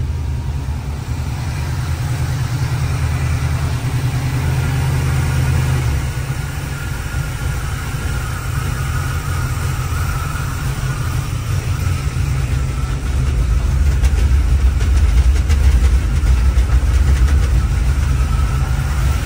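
Carbureted GM Performance crate 350 small-block Chevy V8 idling steadily while it warms up after a cold start, its note shifting about six seconds in. It is running rich ('hella gassy'), which the owner puts down to a carburetor that is too big for it.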